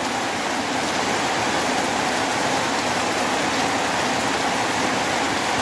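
Fairly heavy rain falling steadily on leafy garden plants and paving: a dense, even hiss that neither builds nor eases.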